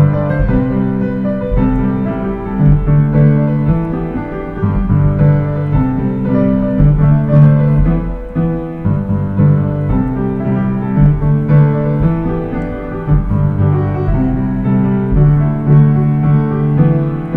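Piano playing a slow pop-song melody over sustained low chords that change every second or two.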